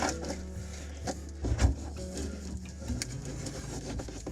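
Quiet handling noises: wire and small parts rubbing and knocking softly against wood, with a couple of small bumps about one and a half seconds in.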